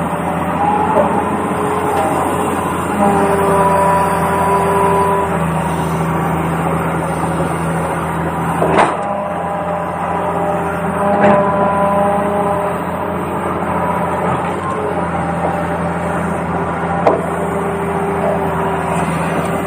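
Small electric motors of a radio-controlled toy excavator whining in steady tones that start, stop and change pitch as it works, over a low hum, with three sharp knocks.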